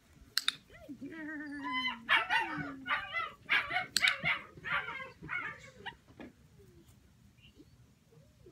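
Young puppy yipping and barking in a quick, excited string of high calls, with two sharp clicks, one near the start and one about four seconds in.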